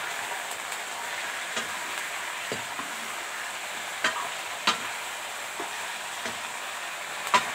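Raw chicken pieces sizzling in hot oil with fried onions and ginger-garlic paste in a kadhai, a steady hiss, while a metal ladle stirs them. The ladle scrapes and clicks against the pan a few times, loudest near the end.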